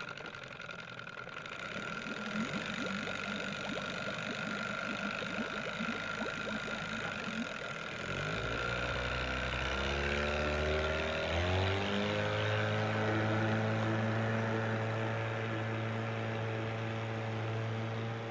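Motorboat engine sound effect: it runs rough and low for several seconds, then about eight seconds in it revs up and settles into a steady, even drone.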